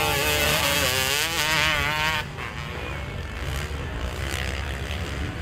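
Dirt bike engines revving hard as two motocross bikes ride past close by, their pitch wavering up and down with the throttle. About two seconds in the sound drops abruptly to fainter, more distant motorcycle engines.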